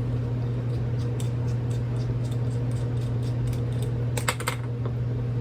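Small metallic clicks and taps of tiny screws and a screwdriver being handled during revolver grip removal, with a quick cluster of sharper clicks about four seconds in. A steady low hum runs underneath.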